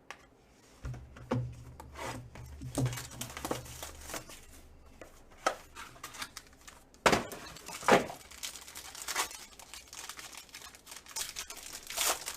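Packaging of a sealed trading-card box crinkling and tearing as it is opened by hand, in a run of sharp rustles and handling clicks. The loudest tears come about seven and eight seconds in, and a low hum sits under the first few seconds.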